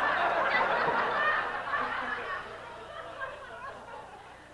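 Audience laughing, loudest at the start and dying away over the next few seconds.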